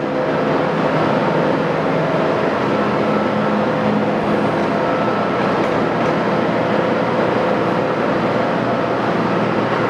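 Axelson heavy-pattern engine lathe running under power with its spindle turning at 53 RPM: the 20 HP main drive motor and headstock gearing give a steady, even running sound with several held tones.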